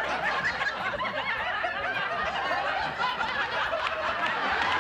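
Many people laughing at once, their voices overlapping.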